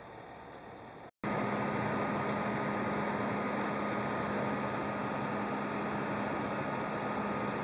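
Corsair H60 cooler's stock radiator fan running fast, at about 1800 rpm: a loud, steady rush of air with a low hum and a faint high whine underneath. It cuts in suddenly about a second in, after a quieter steady whir.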